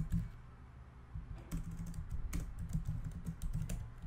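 Typing on a computer keyboard: irregular keystroke clicks, sparse for about the first second, then a quicker run of keys.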